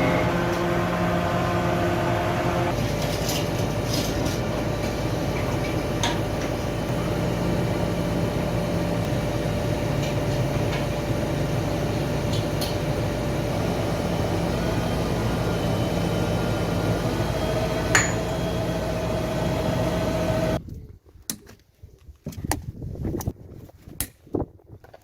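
A machine motor running steadily with a constant hum, cutting off suddenly about 20 seconds in, followed by a few scattered clicks and knocks.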